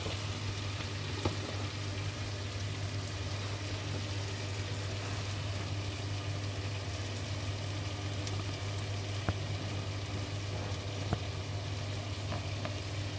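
Shrimp in a garlic and herb sauce sizzling steadily in a frying pan on the stove's leftover heat, over a steady low hum, with a few faint clicks.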